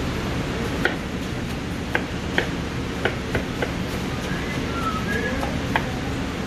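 Chef's knife chopping tomato on a plastic cutting board: about seven sharp, irregular taps as the blade strikes the board, over a steady background hum.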